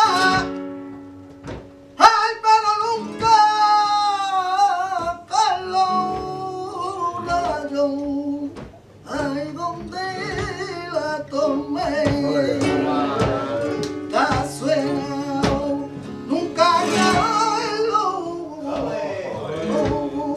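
Soleá played live: a male flamenco singer's drawn-out, wavering lines of cante over flamenco guitar, with many short, sharp strokes marking the rhythm.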